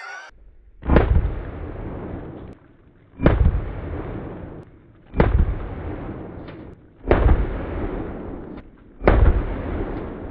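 Five single gunshots fired slowly, about two seconds apart, each followed by a long echo that fades away.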